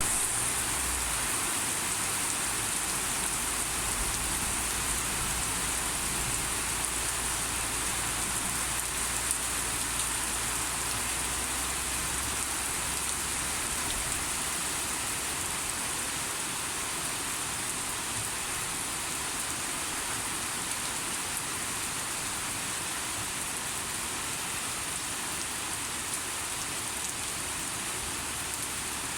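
Heavy rain falling steadily and densely, a continuous hiss of drops on surfaces. A low rumble sits underneath for about the first half, then fades away.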